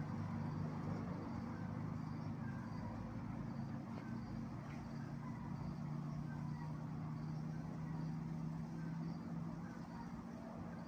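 Steady low mechanical hum, like a running engine, with faint short high chirps repeating at an even pace above it.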